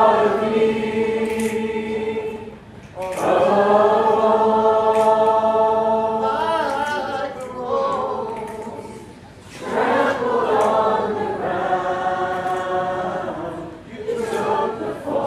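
A large crowd of students singing a worship song together without instruments. The singing comes in long phrases of held notes, with short breaks about two and a half, nine and a half and fourteen seconds in.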